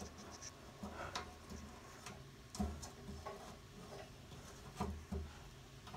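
Faint, scattered clicks and taps of metal parts being handled, with a couple of dull knocks about two and a half and five seconds in. A part is being worked back into place under a truck to hold the oil pan up, and it won't go back in.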